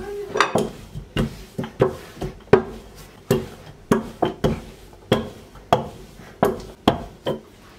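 Long wooden rolling pin rolling out a large sheet of dough on a silicone mat over a counter, giving sharp knocks about twice a second as it is pushed and pulled back and forth.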